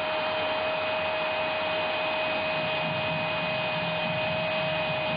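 Football commentator's long, held goal cry on one steady pitch, over a stadium crowd cheering a goal; the crowd grows louder about halfway through.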